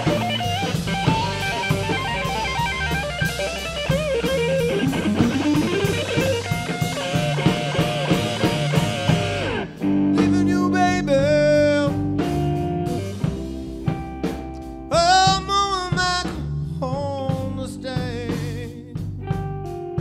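Live electric blues band: electric guitar, bass guitar and drum kit playing together. About ten seconds in, the sound cuts abruptly to another performance, where a lead line of bent, wavering notes rises over sparser backing.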